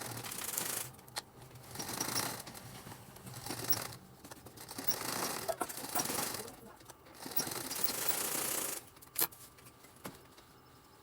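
Sewing machine running in several short bursts of stitching with brief pauses between them, stopping about nine seconds in with a sharp click.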